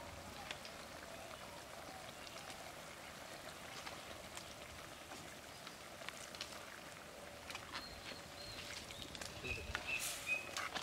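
A clay pot of beans simmering over a wood fire, a faint, even bubbling hiss with small crackles. A ladle of milky liquid is poured in about halfway through.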